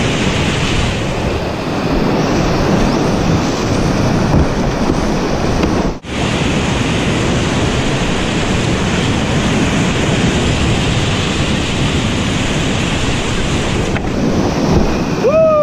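Rushing whitewater of a river rapid, heard close up from a kayak running it, with wind noise on the microphone. The roar drops out for an instant about six seconds in, and a short pitched cry rises and falls near the end.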